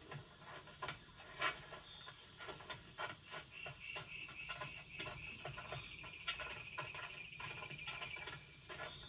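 Animated-film sound effects: many small scattered ticks and taps, with a thin, high, wavering whistle-like tone from about three to eight seconds in that sinks slightly in pitch.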